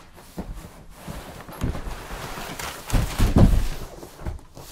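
Cardboard boxes knocking and scraping as a boxed desktop PC is lifted out of a large shipping carton, with a heavy thump about three seconds in.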